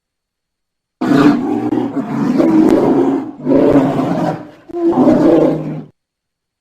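Polar bear roaring growls in three pulses: a long one of about two seconds starting a second in, then two shorter ones of about a second each.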